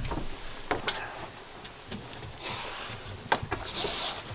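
A large fabric-covered van wall panel being lifted and fitted against the metal wall: scuffing and rustling with a few light knocks, the sharpest about three seconds in.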